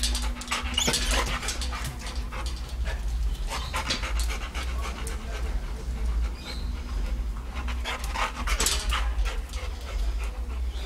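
Rottweiler panting with its mouth open, quick noisy breaths coming in bouts, over a steady low rumble.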